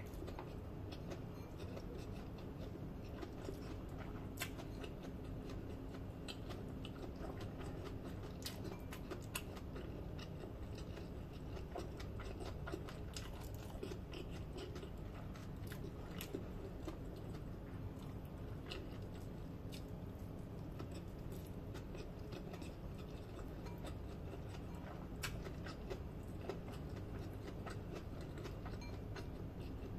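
A person chewing and smacking softly while eating fried rice by hand, with many scattered small clicks over a steady low hum.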